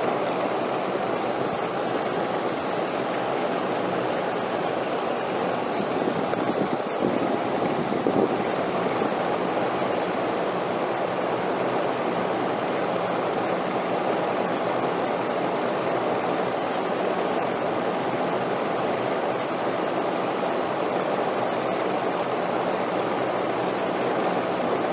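Steady rushing wind with a slight swell about seven seconds in.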